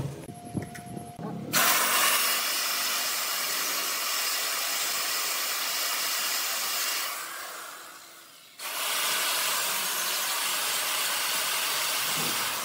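A few knocks, then an electric chainsaw cutting into a block of wood mounted on a lathe: a loud, steady hiss of the chain through the wood that fades off about seven seconds in, then starts again abruptly and runs steadily.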